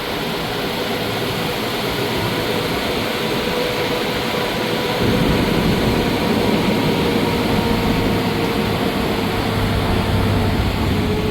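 A motor vehicle running steadily with road noise, a faint steady whine that dips slightly in pitch near the end.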